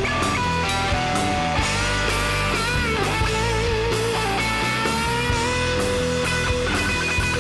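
Guitar-led rock music: a lead guitar plays a melody with string bends and vibrato over a steady full backing.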